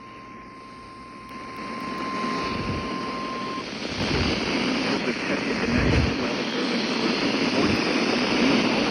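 NOAA Weather Radio warning alarm, its steady tone near 1 kHz, received through a radio on a weak signal. The tone stops about three and a half seconds in, and receiver hiss and static swell louder through the rest, with surging low rumbles.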